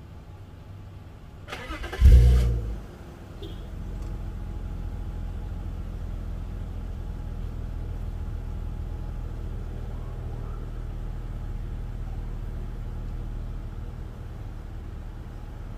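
BMW E36 engine cranking and catching about two seconds in, flaring up loudly as it fires, then settling into a steady idle.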